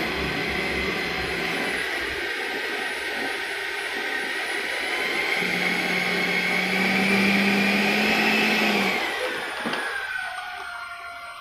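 70 mm 12-blade electric ducted fan on a 3S LiPo running on the ground: a steady rushing whine that climbs slightly in pitch, then falls and fades over the last two seconds as it is throttled back.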